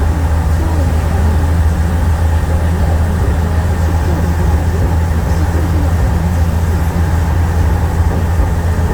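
A car driving on a wet road: a steady, loud low rumble of tyres and engine with no change in pace.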